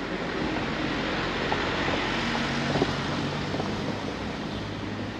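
Traffic noise from a passing vehicle, with a low hum. It swells to a peak about halfway through, then eases off.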